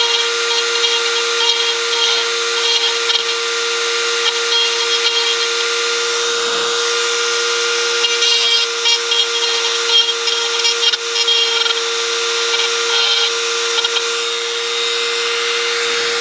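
Handheld power grinder running at a steady high pitch while grinding a cast aluminum oil pan down to bare metal. The rasp of the cut wavers in loudness as the tool bites and eases off.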